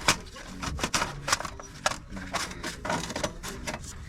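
Irregular metallic clicking and clinking of hand tools and loose exhaust parts being handled, several sharp clicks a second.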